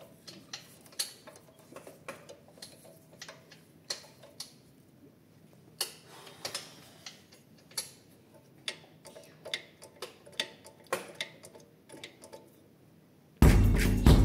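Light, irregular metal clicks and ticks, about one to two a second, from a hex key working the pivot bolt of a motorcycle's gear-shift lever linkage. Near the end, loud drum-heavy music starts abruptly.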